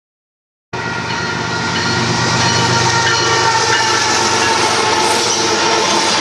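Union Pacific coal train passing close by at a grade crossing: diesel locomotives go by, then coal hopper cars, with a low rumble under several steady high tones. The sound cuts in suddenly about a second in.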